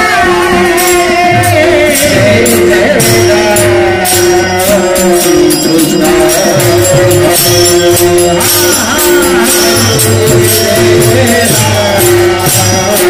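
Marathi kirtan devotional music: a voice singing over a long held drone note, with a steady beat of metallic jingling strokes and a low drum pulse.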